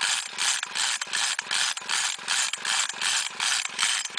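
Chainsaw recoil starter pulled in quick, short, repeated strokes, about three a second, each giving a raspy ratcheting whirr as the engine spins over with its spark plug out. This cranking clears petrol from a flooded cylinder.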